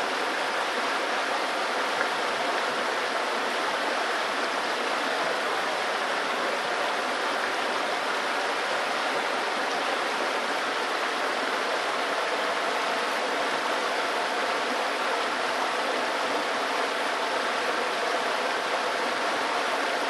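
Small river running over rocks in shallow riffles: a steady, even rush of water.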